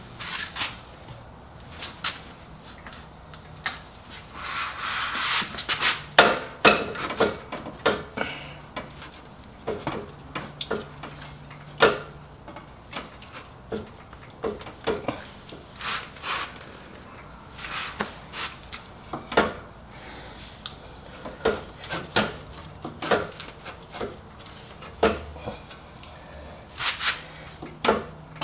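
Chrome muffler of a Honda Goldwing GL1100 being worked onto its exhaust pipe by hand: metal scraping and rubbing, with scattered clicks and knocks, and a longer scrape about five seconds in.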